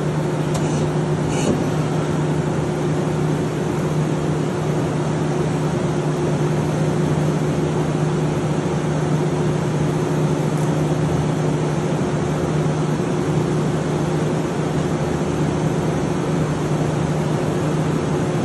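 2019 Smart SL-200 CNC lathe running with its spindle at a steady speed: an even mechanical hum with a strong low tone and a fainter higher one, unchanging throughout.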